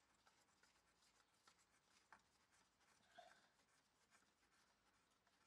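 Near silence: faint room tone with a few small, faint clicks and ticks.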